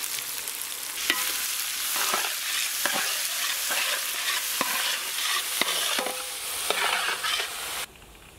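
Sliced onions sizzling in hot oil in a large metal pot, stirred with a long metal ladle that strikes and scrapes the pot about once a second. The sizzling drops away suddenly near the end.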